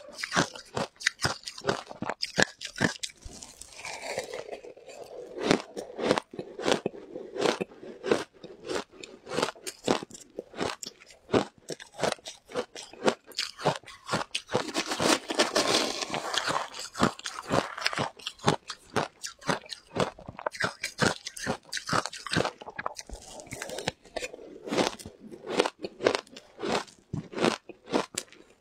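Close-miked crunching and chewing of frozen shaved ice coated in matcha powder: a steady run of crisp, rapid crunches as each mouthful is bitten and broken up.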